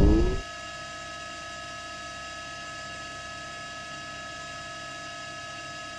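Steady electrical hum with several high, unchanging tones over it, after a louder sound cuts off about half a second in.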